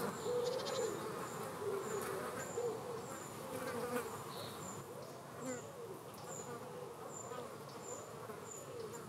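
Common green bottle flies buzzing in flight, a wavering drone that rises and falls in pitch and eases off somewhat in the second half.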